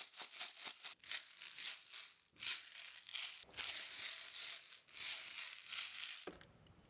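Pebbles rattling inside a capped PVC pipe against a 1075 carbon steel knife blade as the tube is shaken back and forth, about two to three shakes a second: the blade is being stonewashed. The rattling cuts off shortly before the end.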